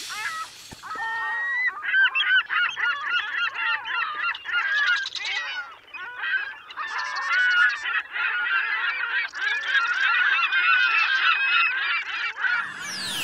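A large flock of gulls calling, many birds crying over one another in a dense chorus. Near the end a single tone sweeps steeply down in pitch.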